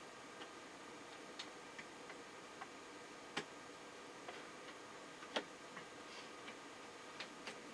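Irregular small clicks and taps of a memory module being handled and pushed into its slot inside a first-generation Intel iMac, with two louder clicks about three and a half and five and a half seconds in, over a faint steady hum.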